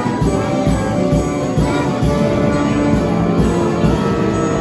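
M. Welte & Söhne orchestrion playing a tune: pipe-organ tones with brass-like voices over a steady drum beat.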